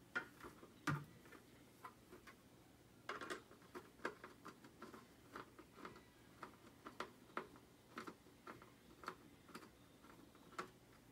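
Faint irregular clicks and ticks, about one to two a second, of a Phillips screwdriver turned by hand to back the top face-mask screws out of a plastic football helmet, with a soft knock about a second in.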